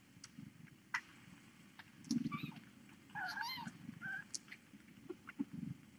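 Young kittens mewing as they jostle for a teat on the nursing mother cat: a few short mews, the first rising, about two to four seconds in. Small clicks and a low rustle run between them.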